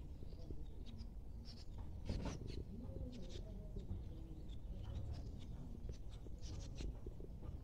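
Faint scratchy rubbing and squishing of hands mixing flour into chapati dough in a plastic bowl, with a few birds chirping in the background.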